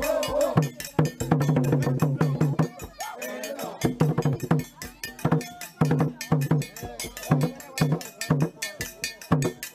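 Makonde mapiko drum ensemble playing a fast, steady rhythm of sharp strokes over deeper repeated drum tones.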